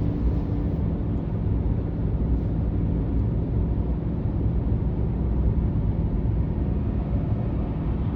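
Chevy 3500 dually pickup's engine pulling steadily under heavy load, held in sixth gear while towing a 14,000 lb trailer up a long mountain grade, with road noise underneath. The engine note holds at one pitch without shifting.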